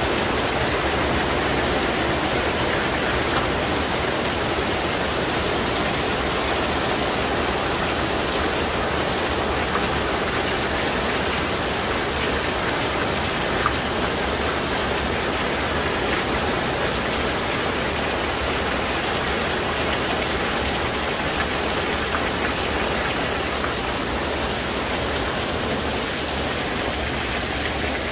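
Heavy rain falling steadily, hissing on a paved courtyard, with runoff pouring off the edge of a covered walkway's roof and splashing onto the wet pavement.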